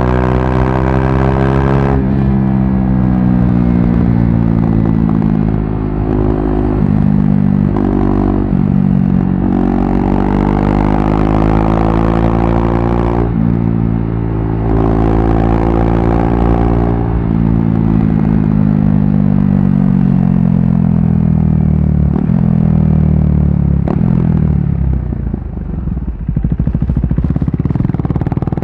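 KTM RC390's single-cylinder engine through a barrel exhaust with the dB killer removed, pulling hard on the move. The pitch climbs and drops sharply several times as it shifts up through the gears, then falls steadily as the bike slows down near the end.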